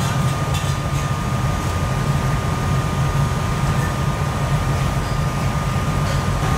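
Steady low hum of factory machinery, with a thin steady high tone above it and a few faint clicks.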